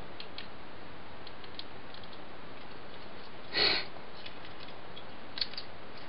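Faint, scattered clicks of plastic toy parts being handled and shifted over a steady hiss. A short burst of noise, the loudest sound, comes about three and a half seconds in, and a sharper click follows near the end.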